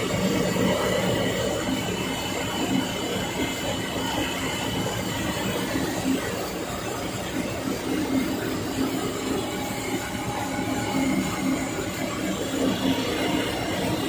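Steady drone of running machinery: a continuous mechanical noise with a low hum and a faint high whine, holding even throughout.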